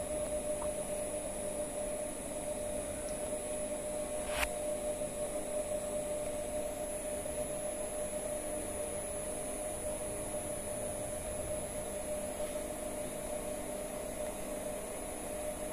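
Steady electrical hum and high-pitched whine from a running permanent magnet synchronous motor and its inverter drive, with a single sharp click about four seconds in.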